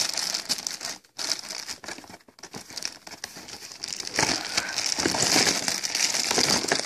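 Clear plastic packaging bags crinkling as hands rummage through a box of bagged aquarium canister-filter parts. The rustling is irregular, dips briefly twice in the first few seconds, and grows busier in the second half.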